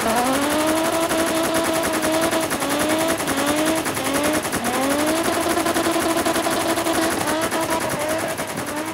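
Car engine revving hard, its pitch repeatedly climbing and then holding high, with a dense rapid rattle of pops throughout.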